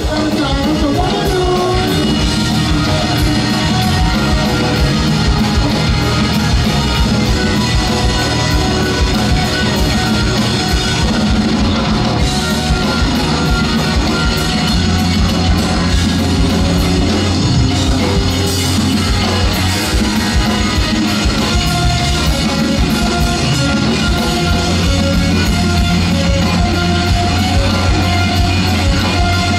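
Live blues-rock band playing loud: electric guitar over bass guitar and a drum kit with steady cymbals.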